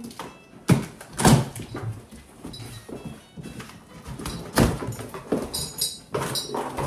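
Large cardboard shipping box being torn and pulled open by hand: scraping and ripping of cardboard and tape, with a few sharp knocks as the flaps are wrenched back, then rustling of packing inside near the end.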